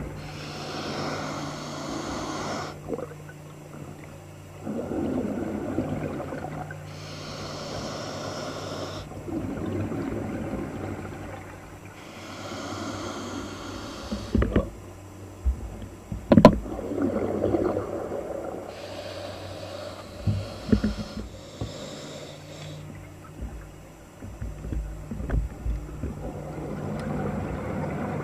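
Scuba diver breathing underwater through a regulator: a hissing rush of exhaled bubbles about every six seconds, with quieter inhalations between, over a steady low hum. A few sharp clicks come around the middle.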